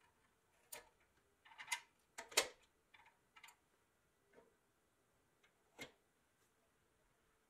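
Light metallic clicks and clinks of a toy tow truck's hook and chain being fitted onto the front bumper of a pressed-steel 1957 Tonka tanker truck. The taps come one at a time, loudest as a quick cluster about two seconds in, with a last single click near the end.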